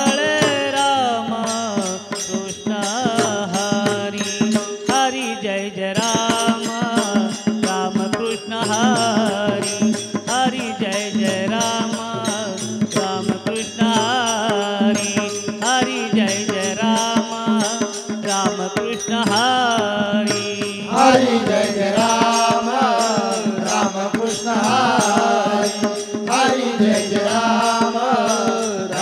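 Men singing a Marathi devotional abhang as a group chant over a steady harmonium drone, with a pakhawaj drum and small brass hand cymbals keeping a regular beat. The singing gets a little louder about two thirds of the way in.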